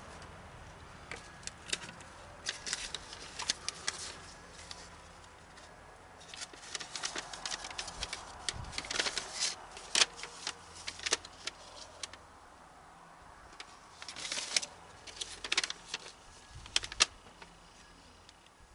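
Scattered light clicks and small clinking rattles, coming in short clusters: small hard parts being handled.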